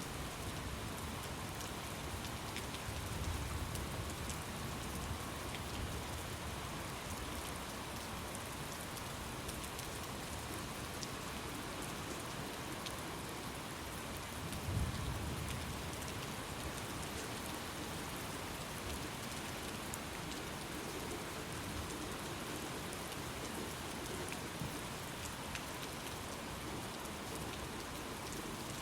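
Steady rain falling, with low rumbles of thunder: a soft one a few seconds in and a short, louder one about halfway through.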